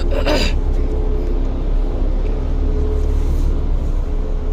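A motor vehicle engine running with a steady low rumble and a faint hum.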